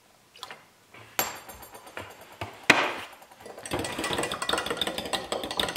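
A metal spoon in a glass measuring cup of egg, water and vinegar: a few separate clinks, one sharper than the rest, then from a little under four seconds in a fast, steady run of clinks as the egg mixture is beaten.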